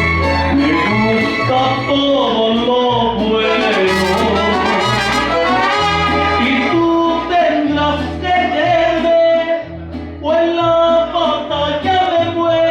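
Mariachi band playing an instrumental passage, trumpets carrying the melody over a bass line that repeats in a steady pulse.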